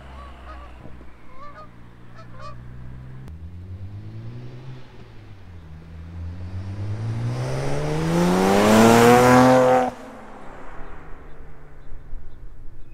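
BMW 335i twin-turbo N54 inline-six with CTS Stage 2+ turbos and catless downpipes, accelerating hard in a drive-by. The engine note climbs in pitch and grows loud as the car nears, then cuts off suddenly about ten seconds in, dropping to a quieter run.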